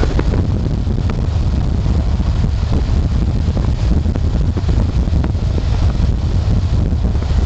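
Road noise from a car driving at highway speed: a steady low rumble of tyres and wind, with scattered small ticks and knocks.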